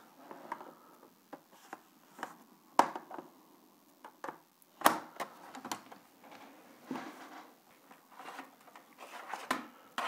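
Scattered plastic clicks and knocks from a Lenovo Ideapad 100-15IBY laptop as its optical drive is pulled out of its bay, with two sharper knocks about three and five seconds in. The drive resists coming out.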